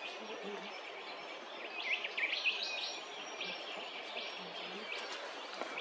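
Wild birds chirping over a steady outdoor hiss, with a quick run of short, high chirps and whistled sweeps about two seconds in, then a few fainter calls.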